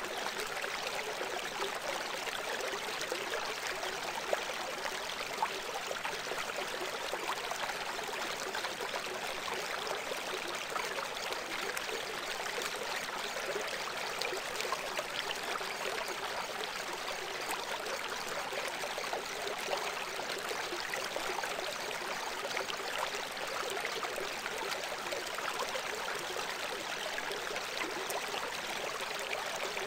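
Steady, even rushing of running water, with no breaks or distinct splashes.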